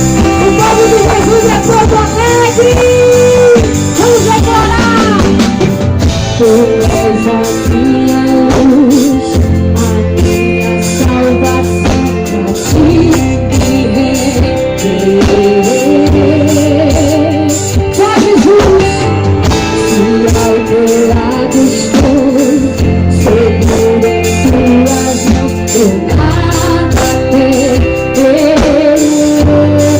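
Gospel worship band playing live and loud, with a sung melody line over the band's accompaniment.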